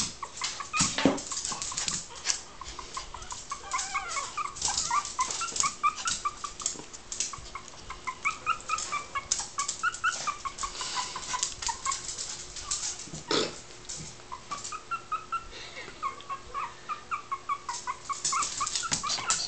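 Three-week-old puppies whimpering: a long run of short, high squeaks, several a second, mixed with frequent small clicks and scratches.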